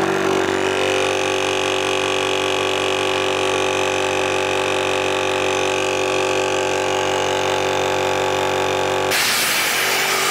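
Yong Heng 30 MPa high-pressure electric air compressor running steadily with a droning hum, pumping into a dive bottle at about 250 bar. About nine seconds in, the drone gives way to a loud hiss of air as the bleed valve is opened to release the pressure before the unit is switched off.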